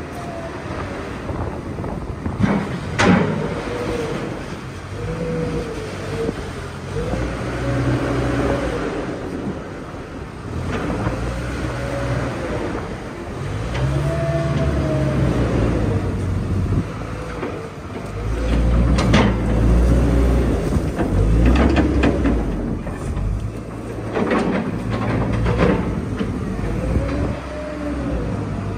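Wheel loader's diesel engine running and revving up and down again and again as it works, with a deep rumble and several sharp metallic knocks, loudest past the middle.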